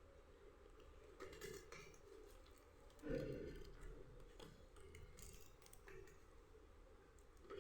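Snacks being packed by hand: a few short, faint crinkling rustles of plastic packaging, the loudest about three seconds in with a soft knock.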